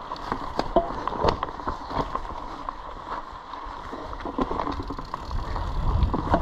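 Mountain bike riding fast down a dirt singletrack: tyres rolling over dirt and dry leaves, with frequent clicks and rattles from the bike over bumps and a low rumble that grows louder near the end.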